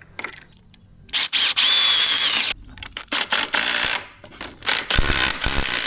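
Handheld power drill working in wood, run in several bursts: one long run with a steady motor whine about a second in, then shorter stop-start runs.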